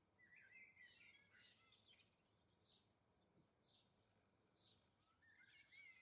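Faint songbird calls: a short, sharp, high note repeated about once a second, with bursts of twittering in the first couple of seconds and again near the end.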